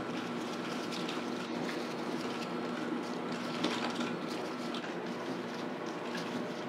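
Steady mechanical hum of kitchen equipment running, with a few faint soft ticks and rustles as dough is handled.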